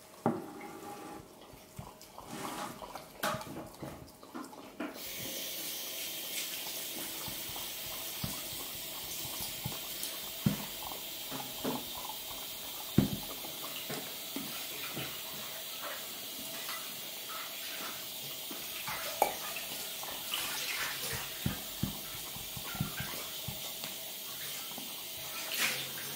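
Staffordshire bull terrier puppy licking milk and licking her lips: scattered wet licks and smacks. From about five seconds in, a steady hiss sits underneath.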